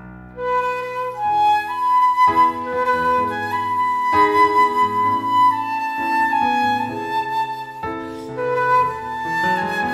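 Concert flute playing a slow, lyrical melody of long held notes over piano accompaniment, coming in right at the start.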